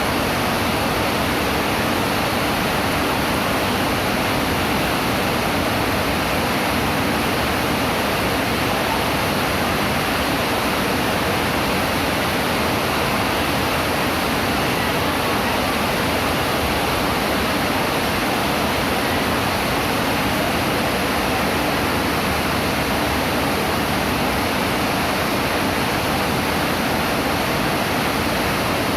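Heavy rain pouring down, a loud, even hiss that never lets up.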